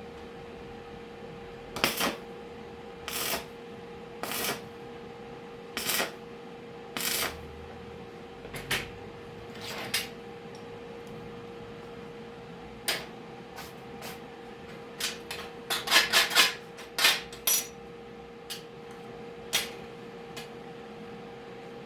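Irregular sharp knocks and clanks of metal parts or tools being handled, with a quick cluster of them about two-thirds of the way in, over a steady hum.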